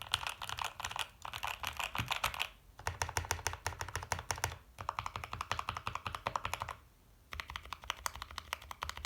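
Glorious GMMK Pro mechanical keyboard with lubed, filmed Durock L5/JWK linear switches on its stock aluminium plate, typed on fast. There are three quick runs of keystrokes with short breaks about two and a half seconds in and again about seven seconds in.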